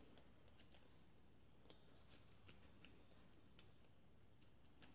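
Faint, irregular small metallic clicks and scrapes of a 523 carburettor's float needle being twisted by hand in its seat, lapping the metal-to-metal seal in with metal polish so it won't leak.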